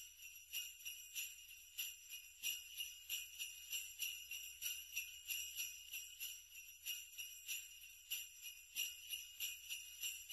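Sleigh bells shaken in a steady rhythm, about three shakes a second, with a bright ringing jingle.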